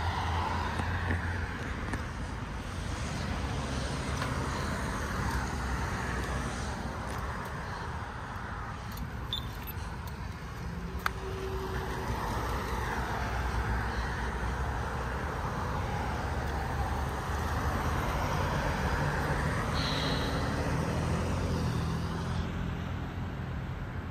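Road traffic: cars passing through an intersection one after another, tyre and engine noise swelling and fading over a low steady hum. A single sharp click sounds about halfway through.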